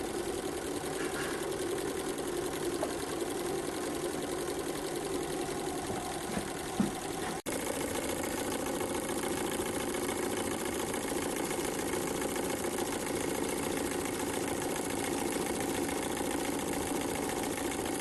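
Small model Stirling engine running steadily, driving a belt-and-pulley generator made from a PC case fan. The sound drops out for an instant about seven seconds in.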